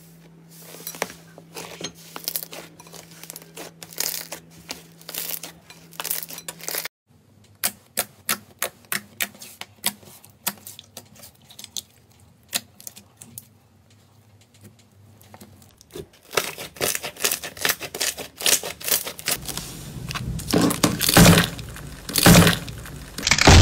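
Hands pressing, folding and squeezing slime, making a run of small sticky clicks, pops and crackles. They come singly, about one or two a second, in the middle, and grow dense and loud in the last few seconds.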